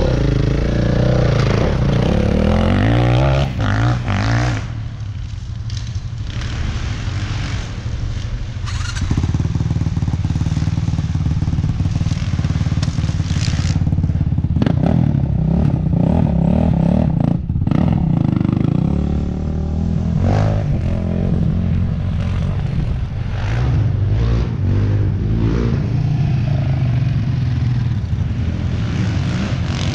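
ATV (quad) engines running and being revved as they are ridden, the pitch rising and falling again and again over a steady low drone.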